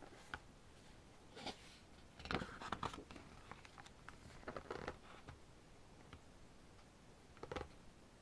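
Pages of a photobook being handled and turned by hand: faint paper rustles and slides in a few short bursts, the busiest about two seconds in.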